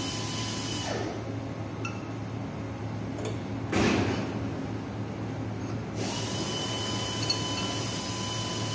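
Steady low machine hum with a thin high whine that drops out about a second in and comes back about six seconds in, and one short scraping rasp about four seconds in.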